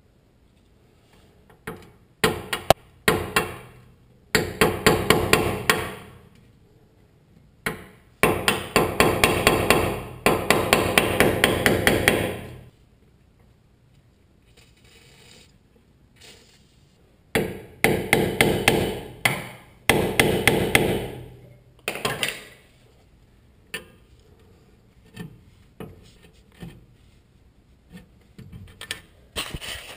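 A hand tool worked on a car's rear brake caliper, making several bursts of rapid, even clicking one to four seconds long, with short pauses between them.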